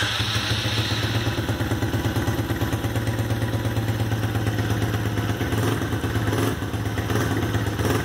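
Small engine of an old Chinese kids' ATV idling steadily, just started with an added remote-start kit.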